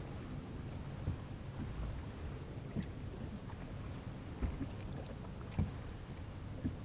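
Bass boat sitting on open water: a steady low wash of water and wind around the hull, with about five dull knocks on the hull or deck spaced a second or two apart.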